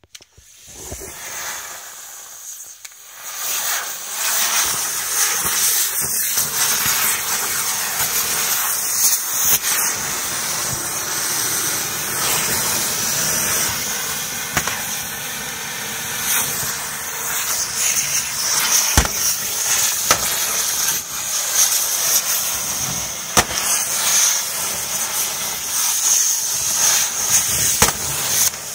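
Several Borracho No 6 ground fireworks burning at once: a dense spraying hiss shot through with crackles and sharp pops. It grows louder over the first few seconds as more of them catch, then holds steady.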